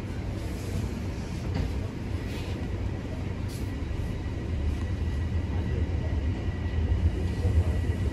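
Inside a TTC Toronto Rocket subway car, the train rumbles as it pulls out of the station and gathers speed. A thin, steady high whine sets in about two seconds in.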